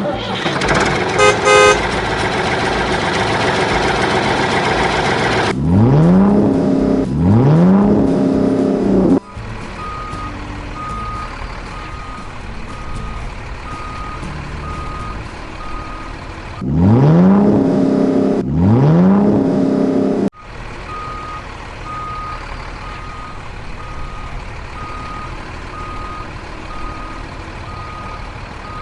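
Truck sounds: an engine running loudly, then revving up twice in quick succession. A steady reversing beeper sounds at about one beep per second after each pair of revs, and the pattern plays twice.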